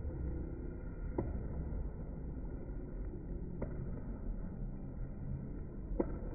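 Gym background noise, a low steady rumble, broken by three short sharp knocks spread a couple of seconds apart.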